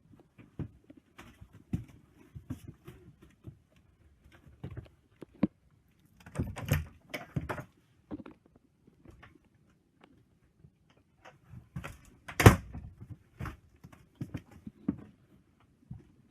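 Scattered knocks, taps and clicks at irregular intervals, with a run of louder thuds around six to seven seconds in and one sharp, loud knock about twelve and a half seconds in.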